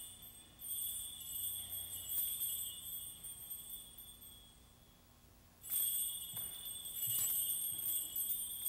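Small metal percussion instruments shaken and struck, giving a high jingling, ringing shimmer. It dies away around the middle, then starts up again loudly a little before six seconds in.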